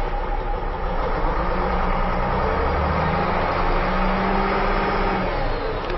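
Diesel engine of a Volvo A30C articulated dump truck, heard from inside the cab, revved up from idle. It rises over about two seconds, holds near 1,900 rpm, and drops back toward idle shortly before the end.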